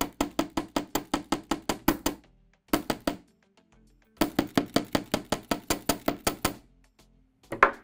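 Chasing hammer rapidly striking copper wire on a steel bench block, about six blows a second, flattening the wire end into a paddle. The blows stop about two seconds in, a few more come near three seconds, then another quick run from about four to six and a half seconds.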